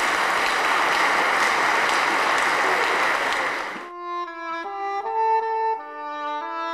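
An audience applauding for about four seconds, cut off abruptly by slow instrumental music with long held notes that change in steps.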